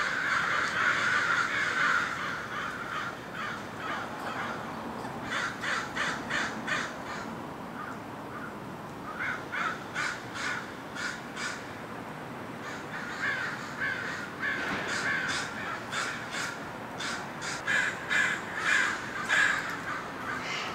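American crows cawing in several bouts of short, quick caws, some several to a second.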